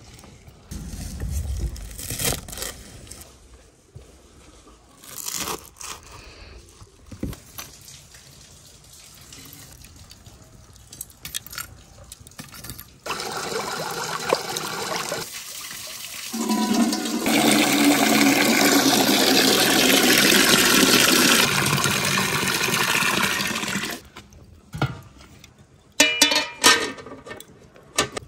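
Water gushing up and bubbling into a pool, a loud steady rush for about ten seconds that grows fuller a few seconds after it starts. Before it come scattered short knocks and cuts, and after it a few sharp metallic clicks.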